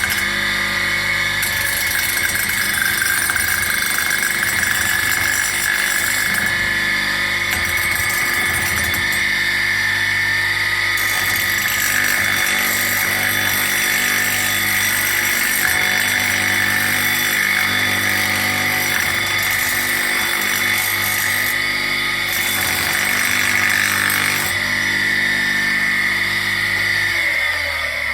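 Electric motor spinning an aluminium disc while the disc is ground down to make it round. A steady motor hum sits under a loud, high, rasping grinding whine. Near the end the motor is switched off and its hum drops away.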